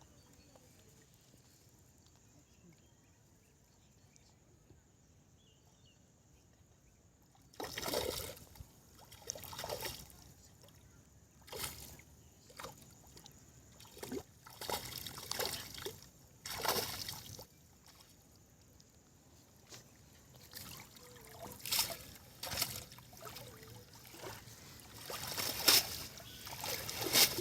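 Water splashing and sloshing in irregular bursts as a fishing net is worked through shallow water. The first seven seconds or so are quiet, then the splashes come, loudest near the end.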